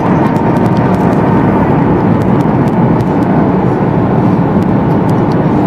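Cabin noise inside a Boeing 737 MAX 8 on its descent: its CFM LEAP-1B turbofans and the airflow past the fuselage make a steady, deep rush with a faint even whine in the middle.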